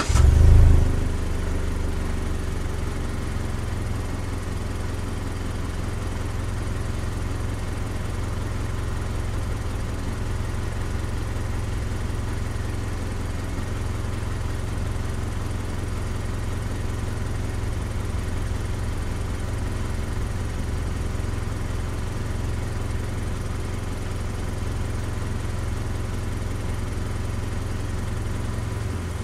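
Mazda CX-5 engine heard from outside at the side of the car: it catches with a brief rev flare in the first second, then settles into a steady idle.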